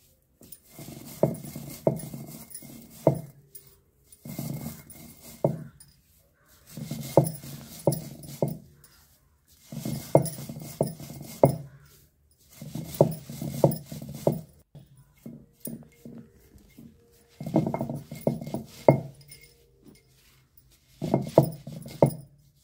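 Roasted mustard seeds being ground on a stone sil-batta: the cylindrical grinding stone is rolled back and forth over the grooved slab, making a gritty, crunching rumble. It comes in spells of a second or two, roughly every three seconds, with short quiet gaps.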